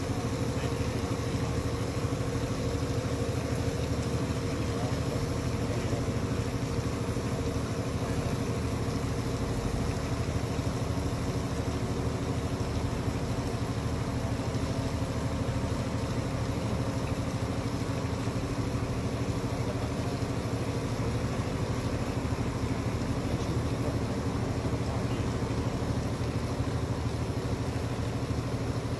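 Heavy diesel engine idling steadily, a constant low hum with no change in speed.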